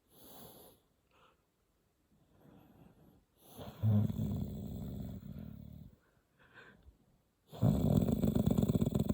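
A person snoring: after a few seconds of faint breathing, two long, rough, fluttering snores, the first about three and a half seconds in and the second starting about a second and a half after it ends.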